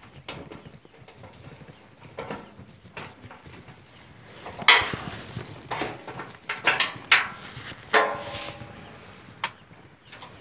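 Headlight wiring plugs being worked loose and pulled apart by hand: a string of short plastic clicks and knocks, some with a brief squeak, the loudest about halfway through.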